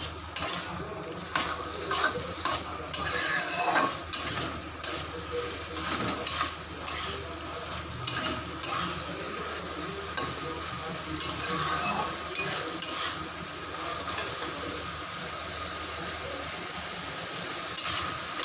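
A metal spatula stirring and scraping vegetables around a steel wok, with the frying sauce sizzling underneath. The scrapes come thick and fast for the first dozen seconds, then thin out, leaving a steady sizzle with one more stroke near the end.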